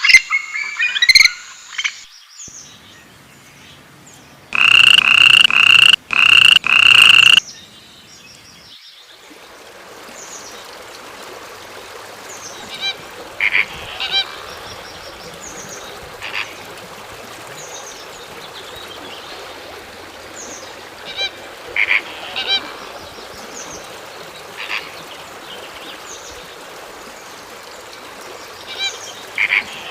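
Animal calls: four loud, harsh, pitched calls in quick succession, then a steady outdoor hiss with scattered short honking calls every few seconds.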